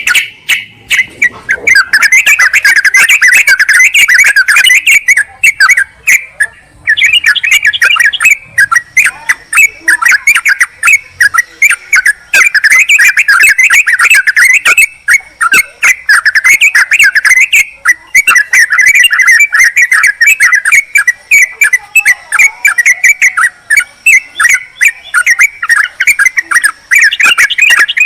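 Yellow-vented bulbuls (trucukan) in dense, rapid, rowdy chattering: bubbling calls pour out almost without pause, broken by a few short gaps. This is the kind of excited chatter used as a lure call to draw wild bulbuls in.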